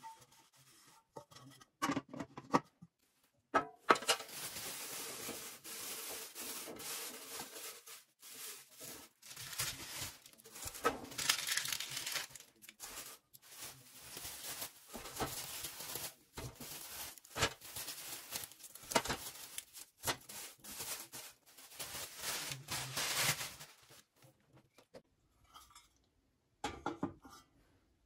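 Thin plastic bag crinkling and rustling as it is handled, in long stretches broken by short pauses. A few sharp knocks come near the start.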